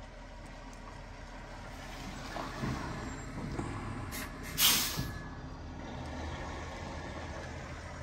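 Semi truck's diesel engine working hard under load as it tries to drive through deep mud, with a short, loud hiss of air brakes about halfway through.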